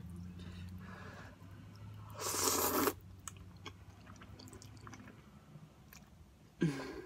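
Close-up eating sounds of instant ramen noodles: chewing with small wet mouth clicks, and one loud slurp of noodles a little over two seconds in.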